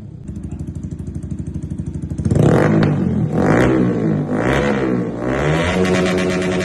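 Yamaha R15M's 155 cc single-cylinder engine through an SC Project full-system exhaust, idling with a fast even pulsing beat. About two seconds in the throttle is blipped hard, and the engine then revs up and down in a series of quick blips.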